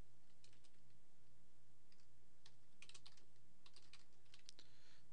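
Computer keyboard keys and mouse buttons clicking in an irregular scatter of short taps, over a low steady electrical hum.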